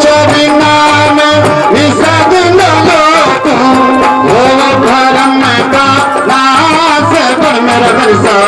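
Devotional bhajan music: an instrumental interlude with a bending melody line over a steady drum beat.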